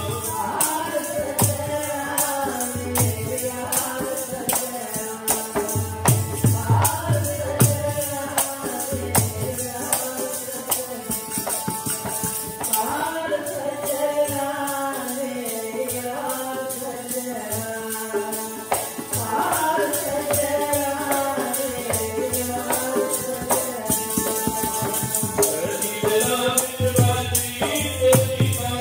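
Sikh kirtan: a voice sings Gurbani in long melodic phrases, each returning about every six and a half seconds, over held harmonium tones and tabla, with a fast, steady percussion beat throughout.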